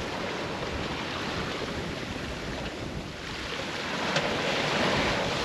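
Wind buffeting the microphone over the rush of water along a sailboat's hull under sail, growing somewhat louder near the end.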